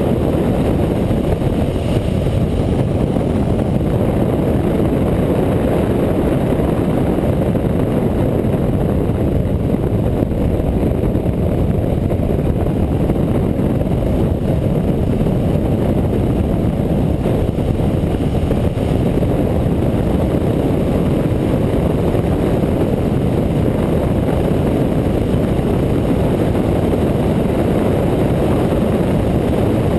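Motorcycle cruising at a steady road speed. A steady low rumble of wind on the microphone mixes with the engine and does not change.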